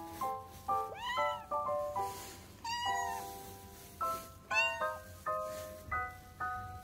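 A tabby stray cat meowing about three times, each call rising and falling in pitch, as it begs for food, over background music of plinking keyboard notes.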